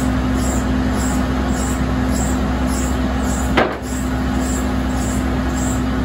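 Sawmill machinery running steadily and loud, with a constant hum and a faint high ticking a little under twice a second. About three and a half seconds in, one sharp wooden clack as a sawn board is dropped onto the lumber stack.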